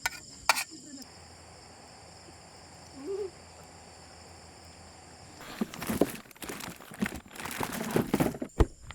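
Crickets chirping steadily in the background, with a few sharp knocks in the first second. From about five and a half seconds in, plastic packaging crinkles and rustles for about three seconds as it is handled.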